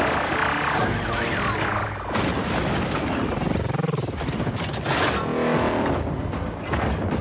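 Film battle soundtrack: music score mixed with booms and crashing impacts of a giant-robot fight, the impacts coming thick and fast in the second half.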